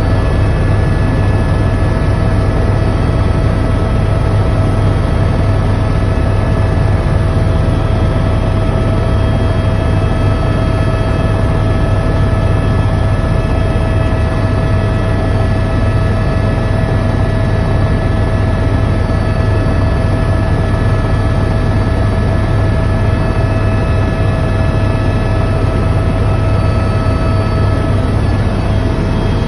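Helicopter turbine and rotor noise heard inside the passenger cabin in flight: a loud, steady drone with constant whining tones over it.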